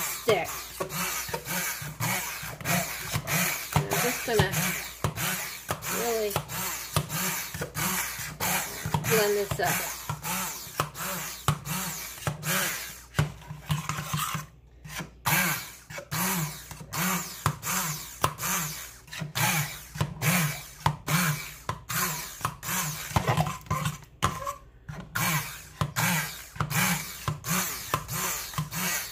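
Handheld stick blender running in a pot of thick chunky sauce, its sound rising and falling about twice a second. It stops briefly twice, about halfway through and again near the end.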